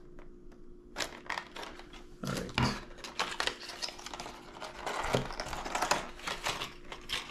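Knife cutting the tape on a small taped lure box and the packaging being worked open: irregular clicks, scrapes and crinkling of handled packaging.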